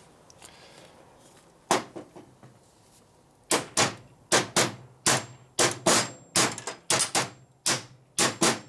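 Hammer blows beating an exhaust pipe clamp down flush: a single strike, then a steady run of about two blows a second, with a faint metallic ring between some of them.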